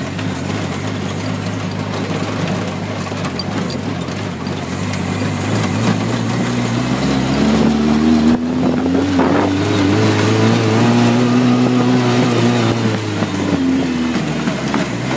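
A 4x4's engine running as it drives over sand, revving up from about six seconds in and holding high under load as it climbs a dune, then easing off near the end.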